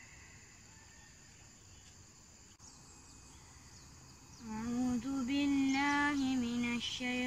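A steady, high insect chorus in the forest. About four and a half seconds in, a voice begins a slow, melodic chant in long held notes that bend at their ends, the opening of a Quran recitation.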